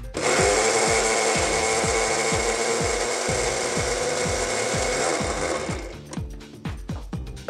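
Electric kitchen blender running at full speed for about five and a half seconds as it purées the soup's sauce of roasted tomato, garlic, onion and soaked chillies. It starts suddenly and winds down near the end.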